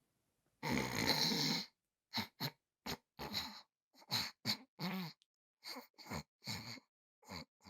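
A person's voice making wordless snoring and snorting noises: one long snore about half a second in, then a quick string of short snorts and grunts.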